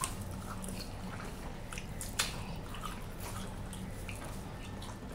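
Close-up eating sounds of someone biting and chewing a sauced chicken wing: small wet clicks and smacks, with one sharper click about two seconds in. A steady low hum runs underneath.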